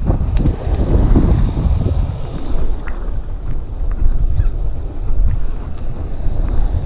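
Wind buffeting the microphone: a loud, gusting low rumble that rises and falls throughout, with a few faint clicks.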